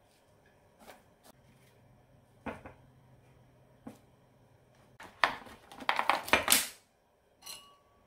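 Kitchen-counter handling sounds: scattered light clicks and taps as vegetables are set on a plate and plastic food containers are moved. About five seconds in comes a louder spell of rapid clicking and rattling, then a single short knock with a brief ring near the end.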